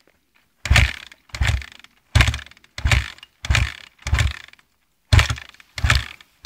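Dirt bike being kick-started over and over, about one and a half kicks a second. Each kick gives a thud as the engine turns over briefly, and the engine does not catch.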